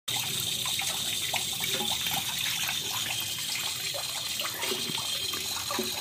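Water splashing and sloshing in a plastic basin as hands swish a lorikeet through it for a bath, many small irregular splashes over a steady watery hiss.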